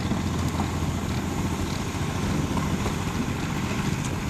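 Farm tractor's engine running steadily under load near the end of a tractor pull.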